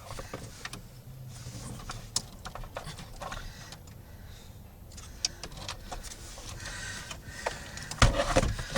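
Hard plastic clicks and rattles as a car's dashboard trim panel and its wiring connectors are handled and unplugged, with a louder clatter about eight seconds in.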